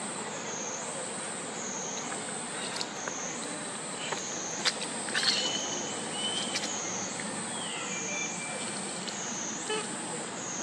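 High-pitched insect drone in a forest: a steady whine that rises and falls in pitch about once a second over a background hiss. A few faint clicks and a couple of brief whistled calls come near the middle.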